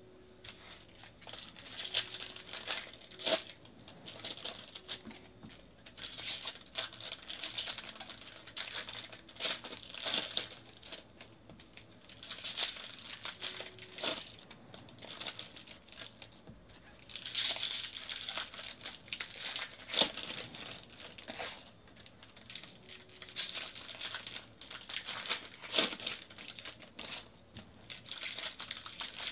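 Plastic-foil wrappers of 2018 Bowman baseball card packs being torn open and crinkled, in bursts of a second or two, with sharp snaps of cards being handled in between.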